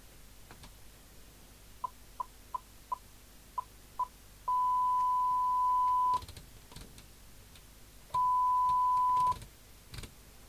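1 kHz test tone from the signal generator heard through the CB radio's speaker as the squelch preset, which is suspected of being dirty, is adjusted. The squelch opens for six short blips, then holds open for about a second and a half, and again for about a second near the end. A few small clicks come in between.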